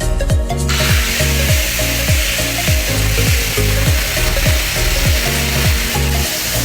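Upbeat background music with a steady beat and bass; about a second in, a steady hiss joins it and runs on under the music.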